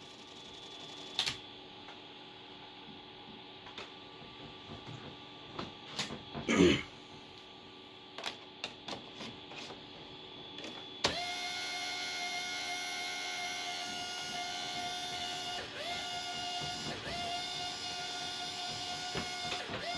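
Disk drive of a Compaq LTE Elite laptop and its SmartStation dock giving faint clicks, then about eleven seconds in starting a steady mechanical whirring whine that dips in pitch a few times. It does not sound good; the owner thinks a drive belt has probably failed.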